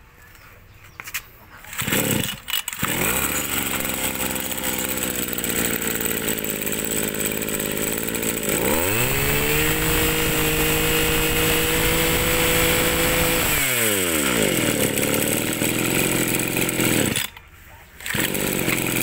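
Mitsubishi TL20 two-stroke brush-cutter engine, pull-started and catching about two seconds in, then idling. It is revved up and held at a high steady pitch for about five seconds, then falls back to idle. Near the end it cuts out briefly and then runs again.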